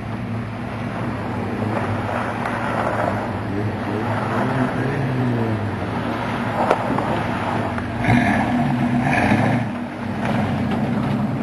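Off-road truck engine running and revving, its pitch rising and falling, with two short louder bursts about eight and nine seconds in.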